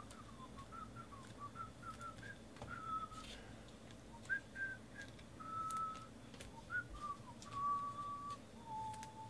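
A man whistling a tune softly, a run of short notes and then a few longer held ones, with scattered light clicks and taps.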